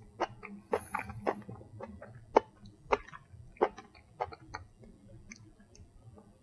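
Irregular light clicks and taps, about a dozen spread unevenly, from wooden chopsticks picking mushroom slices off a plate and from chewing.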